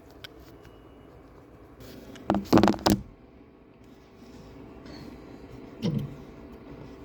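A quick cluster of loud knocks and clatter about two and a half seconds in, and one more knock near six seconds, over a steady low hum: parts and tools being handled while the printer's extruder is put back together.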